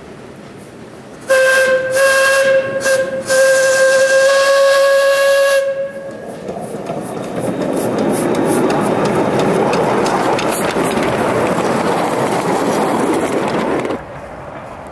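Small steam locomotive's whistle blowing: two short toots, then a longer steady blast of about two and a half seconds. Then a steady hiss and running noise builds as the engine passes close, and cuts off suddenly near the end.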